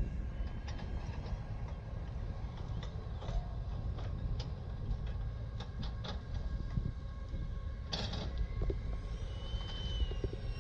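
RC F-22 Raptor model jet's electric motor whining faintly at a distance, under a steady low rumble. Near the end the whine grows stronger and bends in pitch as the jet comes closer.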